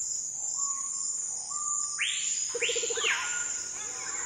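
Tropical rainforest ambience: a steady high insect drone under short bird whistles, with two loud arching bird calls and a brief fast trill about two seconds in.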